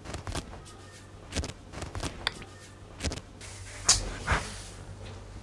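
A few soft knocks and rustles of people moving in a small room, the strongest about four seconds in, over a low steady hum.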